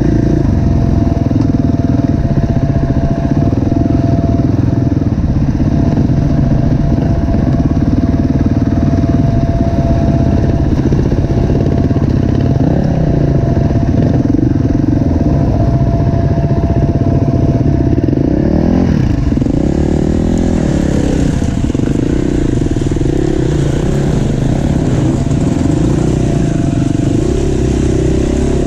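KTM EXC-F four-stroke enduro bike engine heard from on board while riding a wooded trail. The engine runs loud and steady, its revs rising and falling continually with throttle and gear changes. From about 19 seconds in, a hiss of wind or debris noise joins it.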